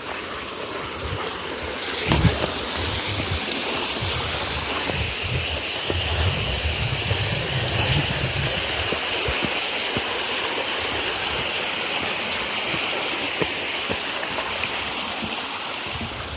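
Waterfall rushing steadily, with irregular low rumbling on the microphone and a single knock about two seconds in.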